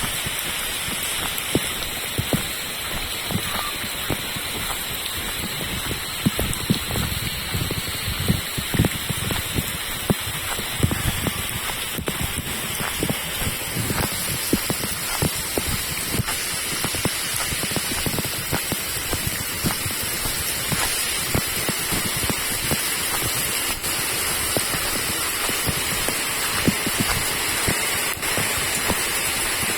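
Steady rain falling: a constant hiss with many close, separate drop hits.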